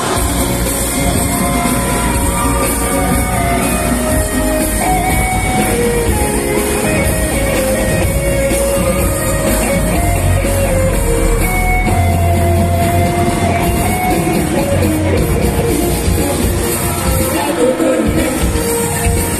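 Live gaita band played through a stage PA: a group of voices singing together over bass, electric guitars, congas and a drum kit.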